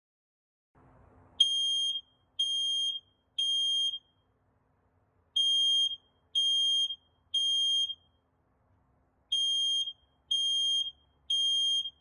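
Smoke alarm sounding its evacuation signal: three high-pitched beeps about half a second long, a pause, then the group of three again, heard three times. This repeating three-beep pattern means smoke has been detected.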